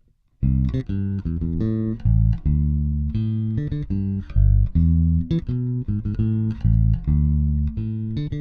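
Bacchus Woodline 5-string electric bass played solo, plucked, running through a repeated exercise phrase of single notes. It begins about half a second in and plays on.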